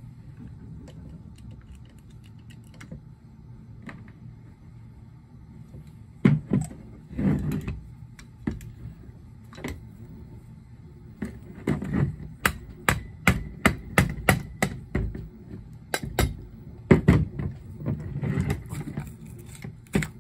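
Metal clicks and knocks from a Solex 28 PICT-1 carburetor being handled and taken apart by hand on a workbench. Around the middle comes a quick run of sharp taps, about three a second, with several louder knocks before and after.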